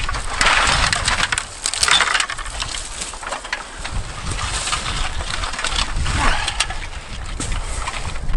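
Empty aluminium beer cans clinking and crunching as they are gathered up and dropped into a garbage bag, a steady run of short metallic clatters with bag rustle.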